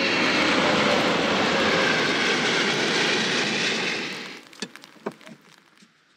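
Jet airliner flying low overhead: a loud, steady engine roar that cuts off abruptly about four seconds in. A few faint clicks follow.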